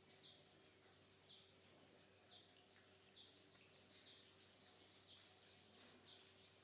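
Faint bird calls: a short, high, falling note repeated about once a second, joined about halfway through by a quicker run of short high chirps, over a faint steady hum.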